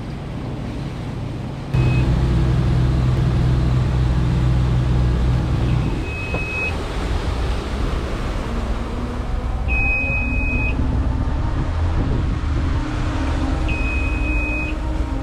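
Sea Ray Sundancer 370 cruiser's twin engines running steadily, louder from about two seconds in, with a short high beep repeating about every four seconds.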